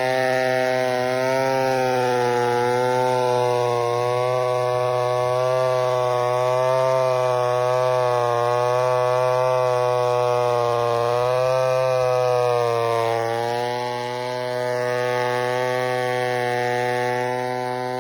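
Chainsaw engine running under load while cutting a log into boards, its pitch wavering with the cut. Its pitch and loudness sag briefly near the end, then recover.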